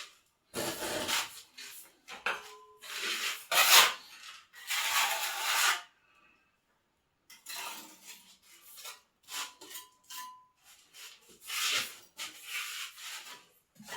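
Irregular series of rubbing, scraping strokes on a hard surface, like an abrasive or rasp being worked, with a short pause about halfway through.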